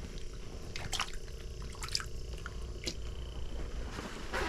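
Scattered drips and small splashes of water, a few short ones about a second apart, over a steady low hum.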